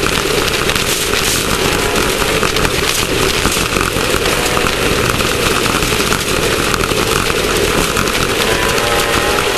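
Class 1600 off-road race car's air-cooled Volkswagen flat-four running hard under load, heard from on board, with constant rattling and sharp knocks from the car over rough ground.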